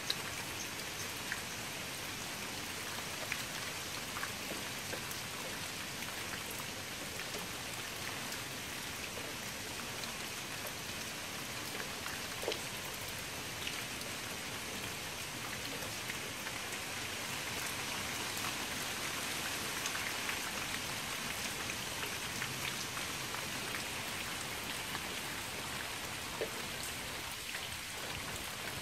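Rain falling onto a shallow pool of standing water: an even hiss with a few louder single drop splashes scattered through it.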